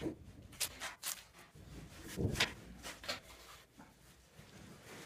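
Aerated-concrete (sibit) blocks being handled and set into a partition wall: a few sharp clicks and soft knocks of block, hands and tools.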